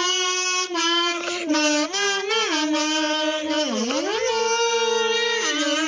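Kazoo playing a melody of held, buzzy notes that step up and down in pitch, with a swoop down and back up about four seconds in.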